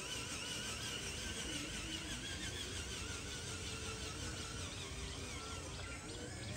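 Birds chirping and insects buzzing over a steady outdoor background hiss.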